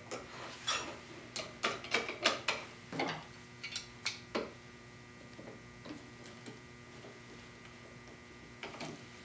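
Small metallic clicks and ticks from hands working a keyed drill chuck: a drill bit pushed into the jaws and slip joint pliers fitted over a second bit set in the key hole to lock the chuck. The clicks come about nine times in the first half, then handling goes almost quiet.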